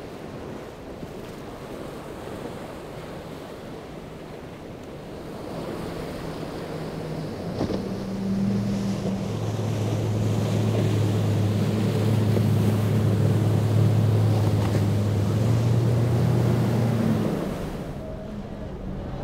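Surf and breaking waves with wind, then the twin Yamaha outboards of an Edgewater center-console boat running hard as it passes close. Their steady low drone rises over the water noise about eight seconds in and drops away near the end.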